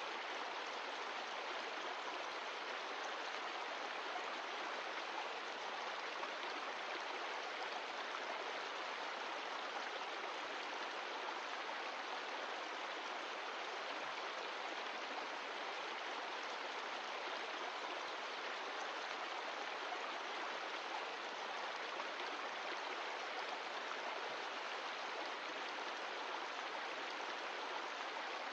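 Mountain stream running, a steady, even rush of water with no change.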